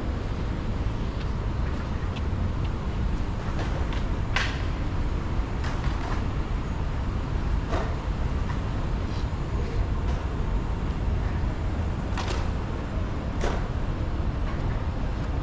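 Steady low rumble of city traffic, with a few sharp clicks and knocks scattered through it.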